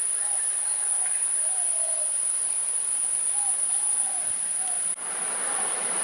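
Insects stridulating: a steady, high-pitched drone that does not let up, with a few faint short calls underneath.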